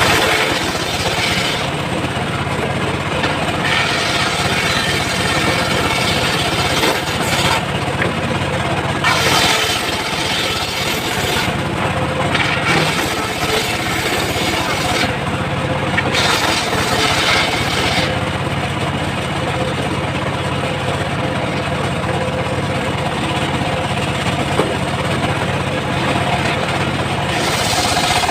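Homemade circular sawmill at work: the machine runs with a steady low hum while the blade rips through teak in several stretches of noisy cutting that ease off and resume.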